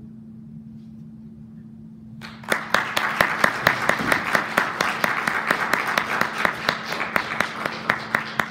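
Audience applauding at the end of a horn solo, starting suddenly about two seconds in, with many separate claps standing out; a steady low hum runs underneath.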